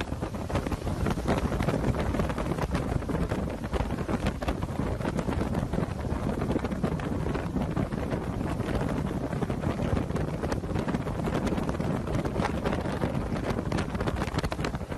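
Hurricane wind gusting and buffeting the microphone: a rough, loud, steady rush with many crackles.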